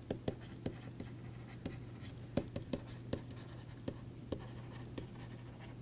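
Stylus tapping and scratching on a tablet as handwriting is written: faint, irregular ticks about three times a second over a low steady hum.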